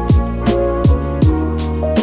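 Mellow lo-fi hip-hop instrumental: soft sustained chords over a steady beat of deep kick drums that drop in pitch, with light hi-hats.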